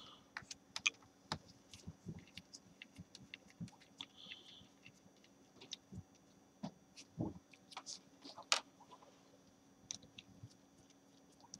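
Faint, irregular clicks and ticks of a small screwdriver and gloved hands working the screws out of a laptop's LCD screen brackets, with a short squeak about four seconds in.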